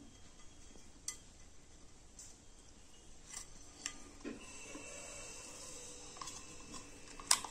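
Scattered light clicks and scrapes of fingers and a price sticker being peeled off the inside of a non-stick kadai, with a sharper cluster of clicks near the end.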